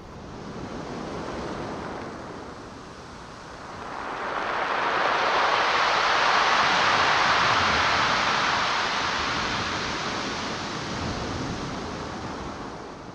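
Pacific Ocean surf: waves washing up the shore and draining back. A small swell comes in the first two seconds, then a larger wave builds about four seconds in and slowly recedes.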